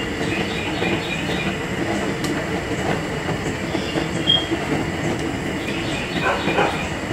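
Raw ground-beef meatballs sizzling and crackling in hot oil in a stainless-steel skillet as more are set into the pan to brown.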